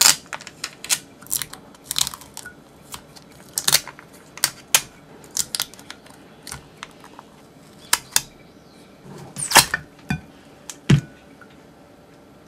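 Close-up kitchen handling noises: a scattered run of short clicks, taps and rustles as tape is peeled off a stainless steel bowl and the bowls are lifted and moved, with two louder knocks near the end.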